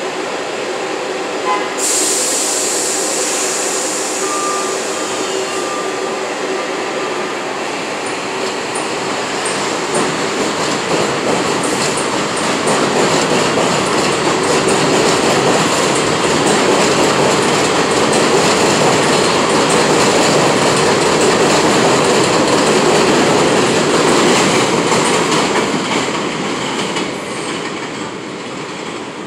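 New York City subway 6 train of R62A cars running along the elevated tracks, a steady rumble and rattle of steel wheels on rail. A high hiss starts suddenly about two seconds in. The noise grows loudest in the middle and eases off near the end.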